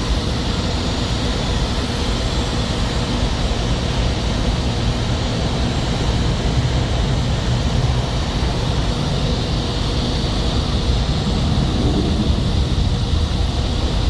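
Steady roar of a jet airliner's engines, even and unbroken throughout.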